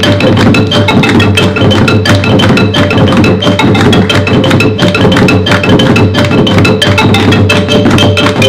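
Percussion-led music: a fast, steady beat of wood-block-like clicks under ringing mallet-struck pitched notes.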